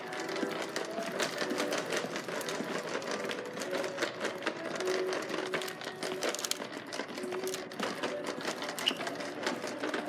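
Upright vacuum cleaner being rolled along a hard floor, its wheels and plastic body rattling in a fast, uneven run of clicks. It is not switched on.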